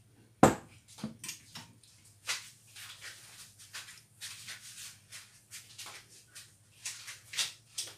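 Olive oil heating in a pan, crackling and spitting in irregular small pops that grow busier after about two seconds. A sharp click about half a second in is the loudest sound, and a faint steady low hum runs underneath.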